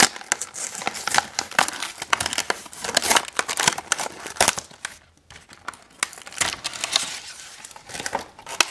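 Clear plastic toy packaging crinkling and crackling as hands pull it open, in quick irregular crackles with a brief lull about five seconds in.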